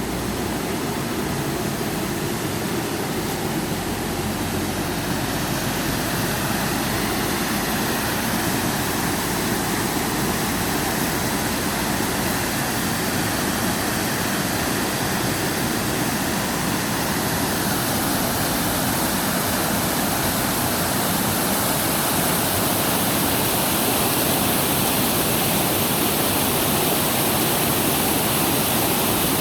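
A mountain valley stream rushing over rocks, a steady full-bodied water noise that grows slightly louder toward the end.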